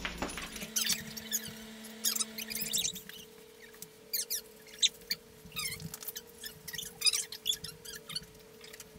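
A dog whining in short, high-pitched squeaks and falling whimpers, over a faint steady hum.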